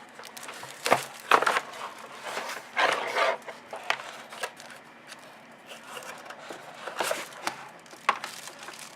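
Cardboard packaging and a boxed keyboard being handled: scattered knocks and short scuffing rustles as the keyboard comes out of its box.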